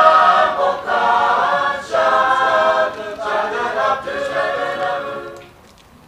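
Mixed choir singing a hymn a cappella in full harmony, its closing chord dying away about five and a half seconds in at the end of the hymn.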